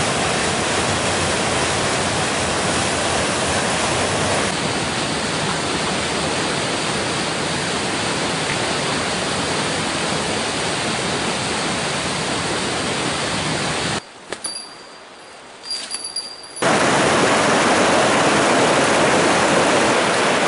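Steady rush of white water from a mountain torrent running through a rocky gorge. About two-thirds of the way through it drops away to a much quieter stretch with a few clicks for a couple of seconds, then the rush of water comes back louder.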